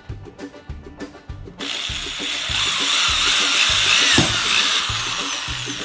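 Black & Decker electric drill starting up about a second and a half in and drilling into a plastic enclosure lid, its whine wavering in pitch. Background music with a steady beat plays throughout.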